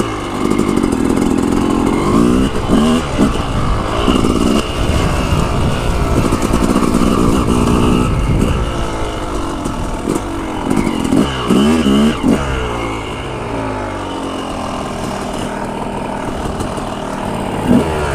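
Two-stroke dirt bike engine heard from the rider's own bike, revving up and down with the throttle as it rides singletrack. It holds high steady revs for a couple of seconds at a time, broken by several quick drops and climbs in pitch.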